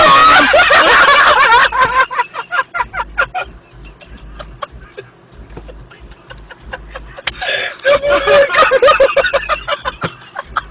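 People laughing hard. Loud, high-pitched shrieking laughter gives way to quick breathy laughs, then a second loud outburst of laughter comes about seven seconds in.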